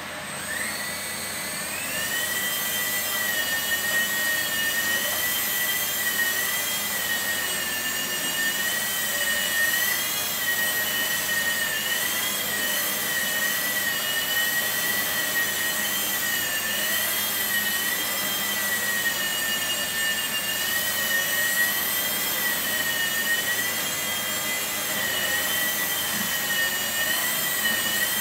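Blade mSR micro RC helicopter's electric motors spinning up over the first two seconds, then a steady high whine, with a second higher tone, that wavers slightly in pitch as it flies.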